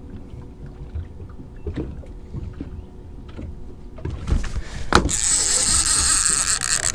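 Sounds of a fishing boat on the water: a low rumble with small knocks and clatter. About four seconds in, a loud steady hiss rises and dominates, with a sharp knock about a second later.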